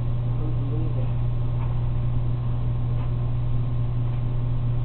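A steady low hum with a faint murmured voice about half a second in.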